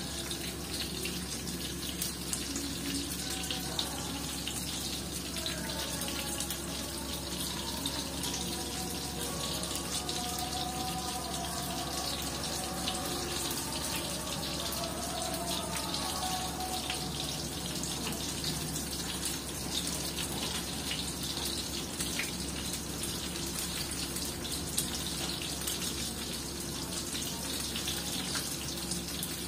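Frying pan sizzling steadily, a constant hiss of hot oil with fine crackles as small white onions fry on a gas hob.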